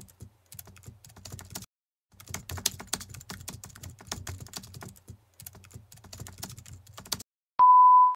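Rapid computer-keyboard typing clicks, with brief pauses about two seconds in and again near the end. A loud, steady, high single-pitched beep follows for about half a second.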